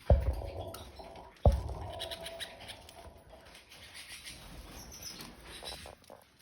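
Canaries moving about their cage: two dull thumps about a second and a half apart, then light scratching and pattering with a few faint chirps.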